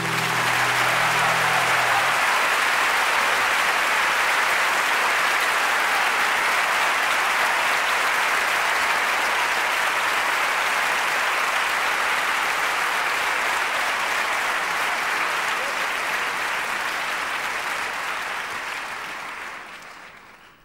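Concert audience applauding steadily and at length, with the song's last low note dying away under it in the first two seconds. The applause fades out near the end.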